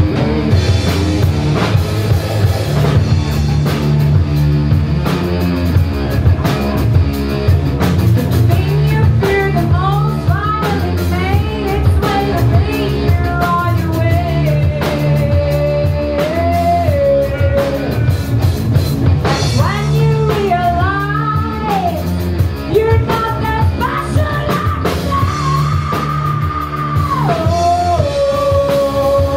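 Live rock band playing electric guitar, bass guitar and drum kit. A singer's voice comes in about nine seconds in, holding long notes that bend between phrases over the band.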